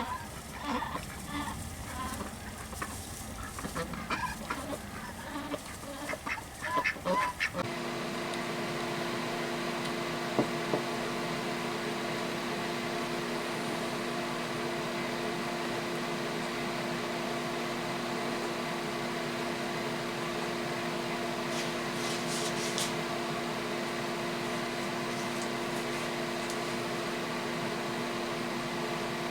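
Ducks quacking for the first several seconds. Then the sound cuts abruptly to a steady mechanical hum with several fixed tones, which runs on unchanged.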